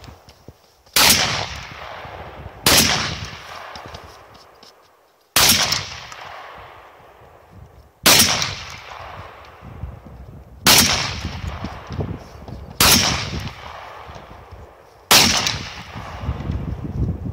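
Seven single gunshots fired one at a time, roughly two to three seconds apart, each followed by a long echo dying away.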